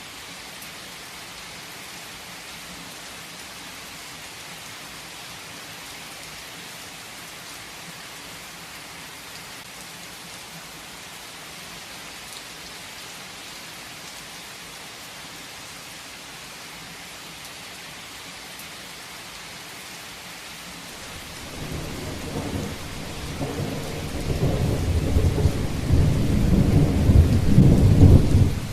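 Steady heavy rain hissing. About two-thirds of the way through, a long roll of thunder builds into a deep rumble that grows louder for several seconds, then cuts off abruptly near the end.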